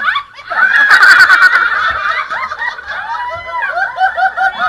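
People laughing loudly, several voices overlapping, with a run of short repeated ha-ha-ha laughs near the end.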